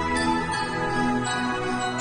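Background music: held melodic notes that change about every half second over a steady low bass.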